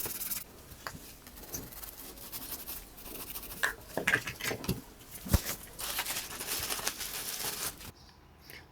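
Close-up scraping and rubbing of old adhesive residue being cleaned off a phone's frame, with thinner used to loosen it. An irregular scratchy hiss is broken by small ticks and taps, and it stops abruptly near the end.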